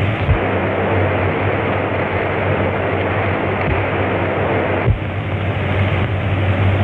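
Steady loud rush of a fast-flowing river, with a low hum beneath it.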